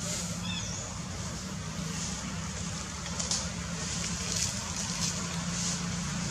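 Steady outdoor background noise with a constant low hum, and a few faint brief hissing rustles.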